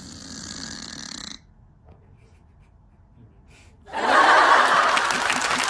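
A sleeping cat snoring, one rough breath lasting about a second and a half. About four seconds in, much louder applause starts and keeps going.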